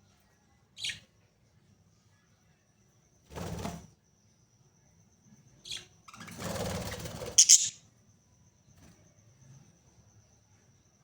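Budgerigars giving a few short, sharp chirps, the loudest a quick double chirp about seven and a half seconds in. Two bursts of rustling noise come between the chirps, the second lasting over a second.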